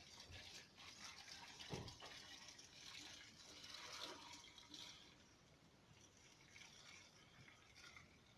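Faint liquid running or being poured, with a soft knock about two seconds in; it fades away about halfway through.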